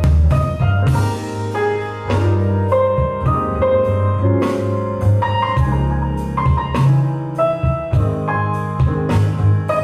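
Jazz-style piano music with a heavy bass line and drums, played back through a loudspeaker for a sound test.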